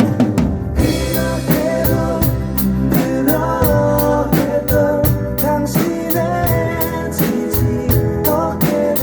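Drum kit played along to a worship song's recording with a sung vocal and band, keeping a steady beat with regular cymbal strikes.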